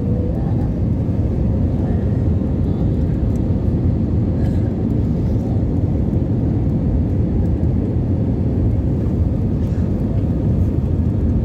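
Steady engine and airflow noise heard inside an airliner cabin in flight at low altitude, deep and even, with a faint steady hum above it.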